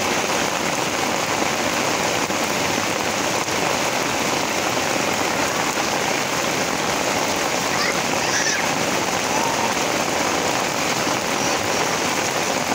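Heavy rain pouring down onto a wet paved street: a steady, even hiss.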